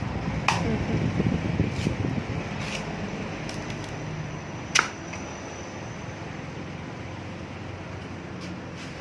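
A few sharp knocks on an aromatic coconut, the loudest a little under five seconds in, with rustling handling of the nut in the first two seconds over a steady background hum.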